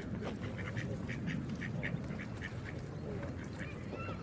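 Geese calling in a quick run of short honks over a steady rush of running water, with one longer honk that bends in pitch near the end.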